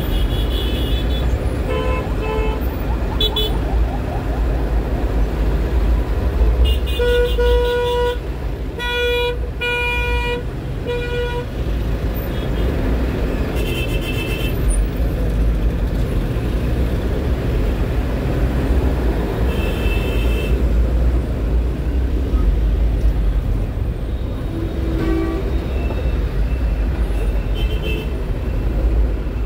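Steady low rumble of a truck's engine in crawling traffic, with vehicle horns honking around it. A run of several short, loud horn blasts comes about seven to eleven seconds in, and shorter beeps are scattered through the rest.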